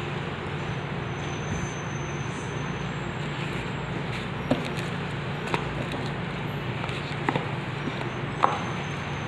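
Steady background noise with a low hum. Over it come four light clicks and taps in the second half, the last the loudest, as a phone's replacement LCD and touchscreen assembly is handled and set down on a bench.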